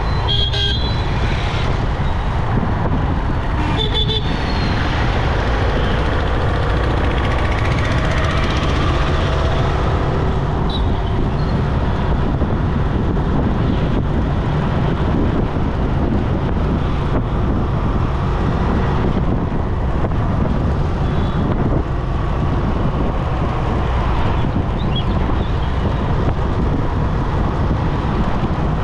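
Steady rumble of wind and engine from a motorcycle riding along a busy highway, with surrounding road traffic. Short horn toots sound twice in the first few seconds.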